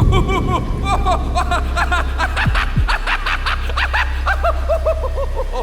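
High-pitched giggling laugh, a rapid run of short 'he-he' notes that slowly fall in pitch, over a steady low drone with a few deep falling booms.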